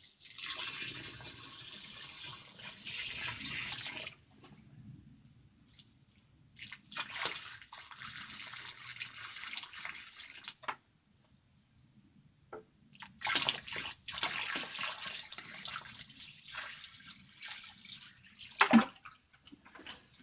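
Water running onto dry concrete mix to wet it so the concrete will set, in three main spells of splashing hiss with pauses between. A short knock near the end.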